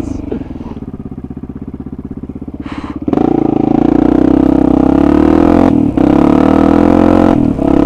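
Single-cylinder dirt bike engine running at low throttle, then opened up about three seconds in and pulling hard and steadily, with two brief dips near the end.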